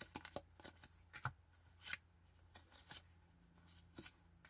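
Pokémon trading cards being slid and flicked one at a time through a hand-held stack: an irregular string of faint, sharp card snaps and slides.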